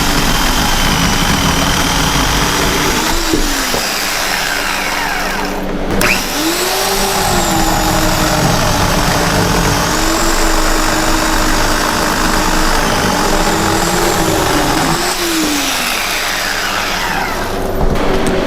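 Portland 14-inch 9-amp electric chainsaw running and cutting through firewood, its motor whine sagging in pitch each time the chain bites into the wood and climbing back as it frees up, several times over.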